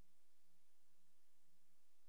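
Near silence: a silent film with no soundtrack, only a faint steady hiss and a low hum.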